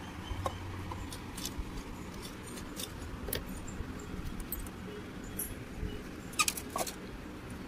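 Light plastic clicks and taps as a toy kitchen's plastic dishwasher door and rack are opened and handled, scattered throughout, with a louder cluster of clicks about six and a half seconds in.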